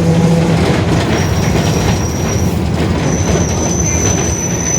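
Mercedes-Benz OF-1721 city bus under way: steady running and road noise, with a low hum from the differential that stops about half a second in. A thin high-pitched squeal comes and goes from about a second in. The differential is running very loud, the fault the title names.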